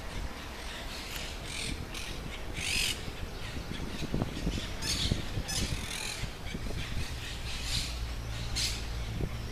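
Birds squawking: a rapid series of short, harsh, scratchy calls, over a low background rumble.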